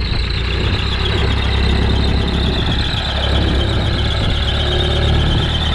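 Powertrac 434 DS tractor's diesel engine running steadily under load as it drags a rear earth leveler blade full of soil. A steady high-pitched squeal runs over the engine.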